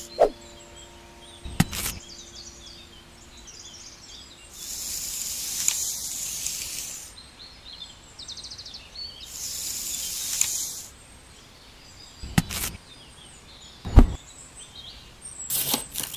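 Two hissing bursts of about two seconds each and several sharp taps or knocks from small-scale hand building work, with small birds chirping in the background.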